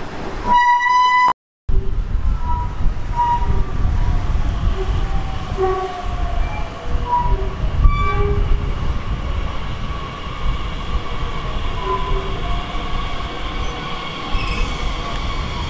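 A train horn gives one short, high blast. After a brief gap a train runs past, its wheels rumbling on the rails with several whining tones over the rumble, some slowly falling in pitch.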